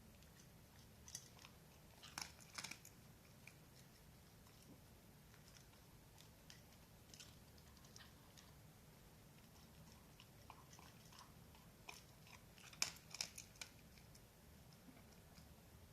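Dachshund chewing crunchy food: sharp, quiet crunches in scattered clusters, a few in the first three seconds and the loudest burst of several about thirteen seconds in.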